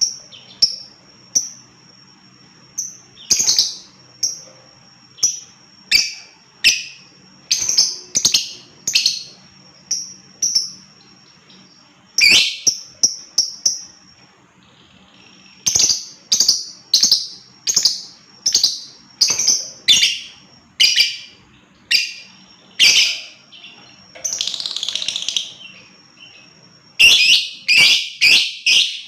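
Lovebird (Agapornis) calling: a string of short, sharp, high-pitched chirps, about one or two a second. There is a brief pause about halfway through, and near the end the calls come in a quick, dense chatter.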